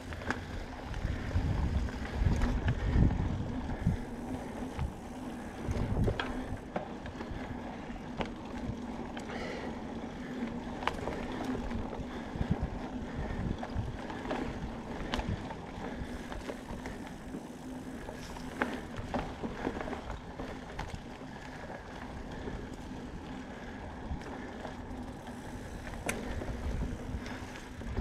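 Mountain bike being ridden along a dirt singletrack trail, its tyres rolling with frequent sharp clicks and rattles from the bike over bumps. Low rumbling surges are strongest in the first few seconds.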